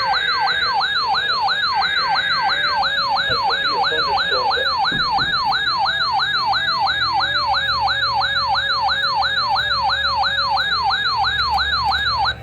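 Electronic siren in a fast yelp, its pitch sweeping up and down about three times a second, loud and even. It cuts off suddenly at the end.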